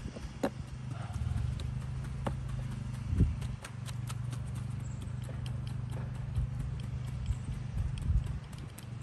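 Three-pronged hand cultivator raking soil out of the roots of a clump of sod: quick, continuous scraping strokes with loose soil falling, and a few sharp clicks of the metal tines.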